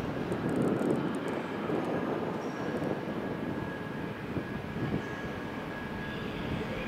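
Belgian NMBS/SNCB M6 double-deck push-pull train rolling slowly into the platform, a steady rumble. A thin, steady high whine comes in about two and a half seconds in.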